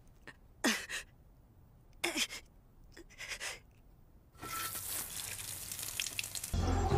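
A character's short breathy gasps, five or so in the first few seconds, each falling in pitch. A steady airy hiss follows from about four and a half seconds in, and a louder low sound comes in near the end.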